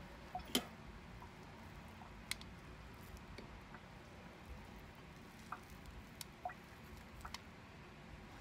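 Faint sticky squishes and scattered light clicks from hands pressing rolled-oat energy bites into balls on a metal plate, the sharpest click about half a second in.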